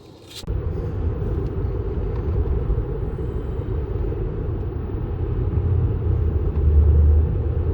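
A vehicle driving: a steady low rumble of road and engine noise that starts about half a second in.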